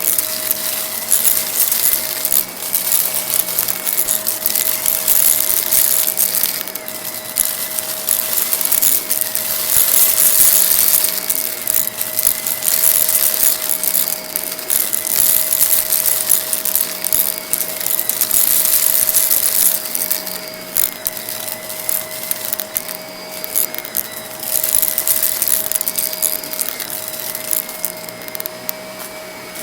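Vacuum cleaner running on a rug with a steady motor whine, picking up gritty debris that crackles and rattles as it is sucked in.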